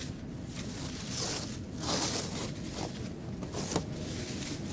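Clear plastic stretch wrap crinkling and tearing as it is pulled off a crate in several rough bursts. The loudest burst comes about two seconds in, and there is a short sharp snap near the end.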